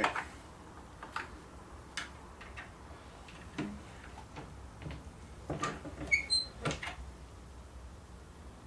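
Reloading press working 7.62x39 cartridges through a Lee Factory Crimp Die: irregular clicks and knocks of the handle, ram and cases, with a short metallic ping about six seconds in.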